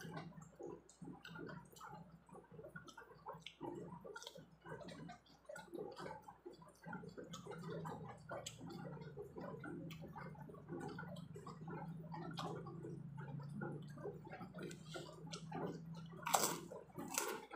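Close-up chewing of Oishi Shrimpon prawn crackers: small irregular crunches and wet mouth sounds, with two sharper, louder crunches near the end. A low steady hum runs underneath through the second half.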